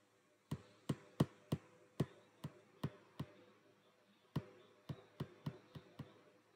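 A string of about fourteen short, sharp clicks or taps, unevenly spaced at two or three a second, with a pause of about a second in the middle.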